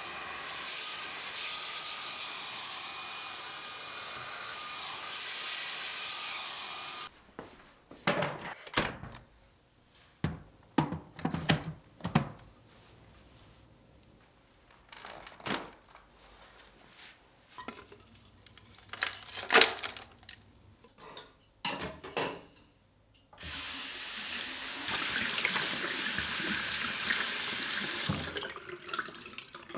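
Tap water running into a sink, which stops about seven seconds in. Then comes a stretch of scattered knocks and clatter as things are handled, and the water runs again near the end.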